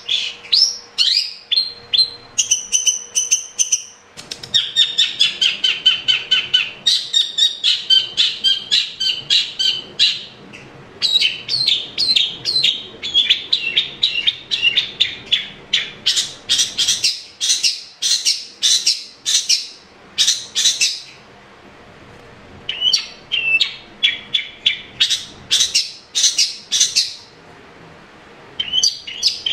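Long-tailed shrike singing: long runs of fast, sharp chattering and whistled notes, several a second, broken by a few short pauses.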